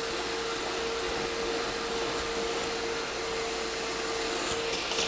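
Bissell portable carpet and upholstery spot cleaner running steadily, its suction motor giving a constant whine over a rushing hiss as it draws water and dirt off the upholstery. Near the end the whine briefly breaks and a short high hiss sounds.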